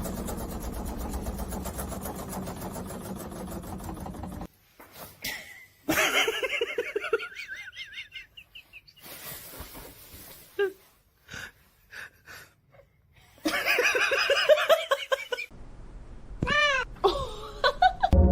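A steady mechanical hum that cuts off after about four seconds, followed by a string of loud wavering cat yowls and meows, with the last few calls short and rising then falling.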